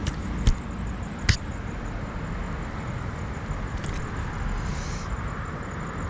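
Handling noise as a hook is worked out of a small bass's mouth: two sharp knocks about half a second and just over a second in, then a few faint clicks, over a steady low background rumble.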